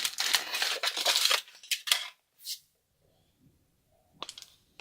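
Foil wrapper on a giant chocolate egg crinkling and tearing as it is pulled off, with sharp crackles. The crinkling stops about halfway through, and a few light clicks follow near the end.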